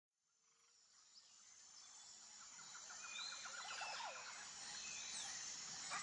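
Tropical forest ambience fading in from silence: a steady high-pitched insect drone, with birds calling over it. A rapid trill and a few gliding calls come about three seconds in.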